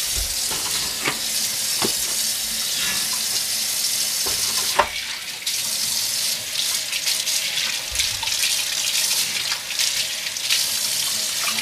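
Cold water running steadily from a kitchen tap into a sink as pork spare ribs are rinsed under it, with a few light knocks from handling the meat.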